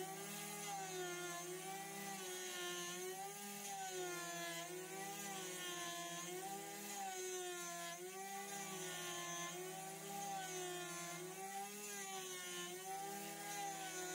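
Small desktop 5-axis CNC mill spindles whining while end mills cut aluminium bar stock, the pitch dipping and recovering about every two seconds as the cutter loads up on each pass.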